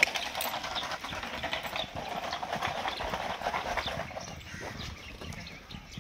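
Hooves of several foals running on loose sand, a fast, muffled patter of hoofbeats and scuffing that fades after about four seconds as they move away.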